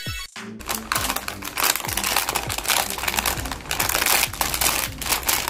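Clear plastic packaging bag crinkling and rustling as hands handle it, starting about half a second in, over background music with a steady beat.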